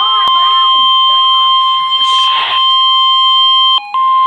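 NOAA Weather Radio / EAS warning alarm tone: a single steady high beep near 1 kHz, held unbroken, signalling an urgent weather warning. A wavering siren fades out beneath it in the first couple of seconds, a short hiss cuts in about two seconds in, and the tone breaks briefly near the end before stopping.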